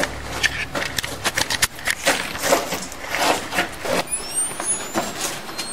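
Irregular clicks, knocks and rubbing from a handheld video camera being fumbled with to get its night view working. About four seconds in, as the night view comes on, a thin high whine sets in and rises slowly in pitch.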